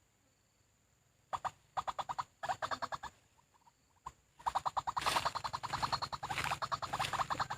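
White-breasted waterhen (ruak-ruak) calling: fast series of harsh repeated notes, several short bouts about a second in, then a longer, louder run of calls from about halfway.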